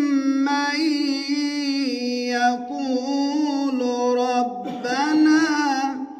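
Man's voice reciting the Quran in melodic tajwid style, drawing out long held notes with small ornamental turns, briefly breaking off about four and a half seconds in and ending just before the close.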